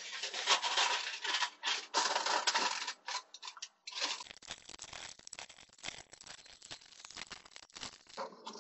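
Aluminum foil crinkling and crackling as it is pressed down into clear plastic cups and folded over their rims. It is loudest in the first four seconds, then goes on as a softer, denser crackle.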